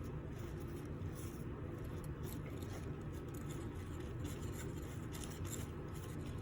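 Faint, irregular scratchy brushing as orange hair dye is worked into a wig's blonde hair, over a steady low hum.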